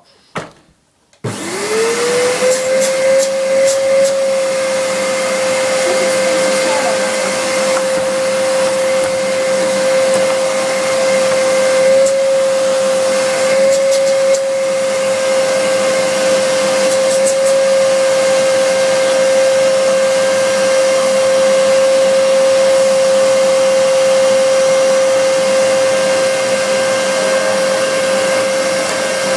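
Hoover PurePower vacuum cleaner switched on about a second in: its motor spins up in a quick rising whine, then runs at a steady high-pitched hum.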